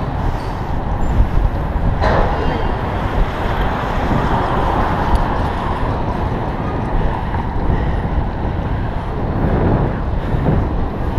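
Wind buffeting the microphone of a camera riding on a moving bicycle, over steady city traffic noise, with a brief sharp knock about two seconds in.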